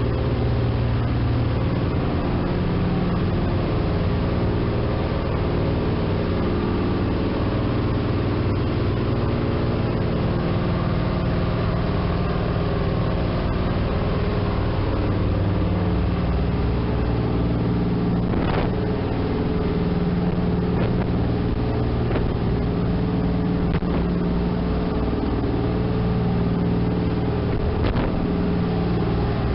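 Sightseeing cruise boat's engine running steadily under way, a low hum that swells and fades, over the rush of water from the wake along the hull. Two faint knocks, one about two-thirds of the way through and one near the end.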